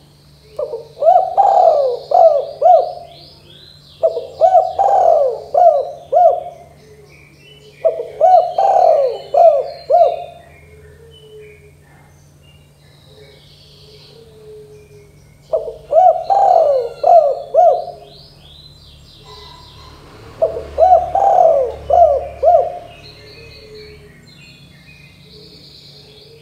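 Spotted dove (tekukur) cooing in five phrases of four or five quick coos each, a few seconds apart. Fainter, high chirps of small birds sound in between.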